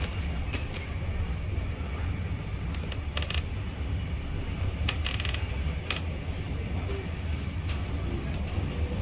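Wind buffeting the microphone at the open window of a moving carriage hauled by steam locomotives, a heavy low rumble over the train's running noise. Scattered sharp clicks and ticks come through it, bunched around the middle.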